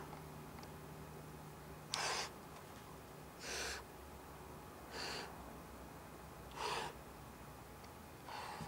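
A person breathing hard: five short, sharp breaths at a steady pace, about one every second and a half.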